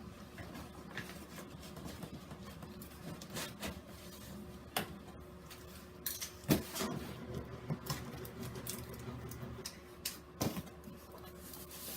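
Cardboard box and packaging being handled as a wet/dry vacuum is unpacked: scattered rustles, scrapes and clicks, with a few sharper knocks, over a faint steady hum.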